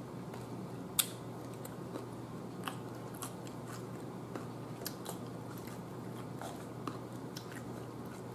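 Raw cucumber slices being bitten and chewed close up, a crisp wet crunching with irregular sharp clicks, the loudest about a second in.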